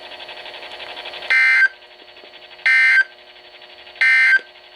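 NOAA Weather Radio's SAME end-of-message code: three identical short bursts of digital data tones, about a second and a half apart, marking the end of the alert. Between the bursts there is only a faint steady hum from the radio.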